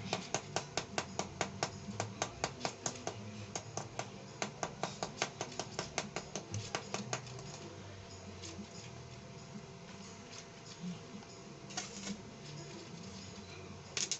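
Rapid metal-on-metal tapping at a joint of a steel tube frame: about five sharp taps a second for some seven seconds, then it stops. Near the end comes a short crackle as a stick-welding arc is struck.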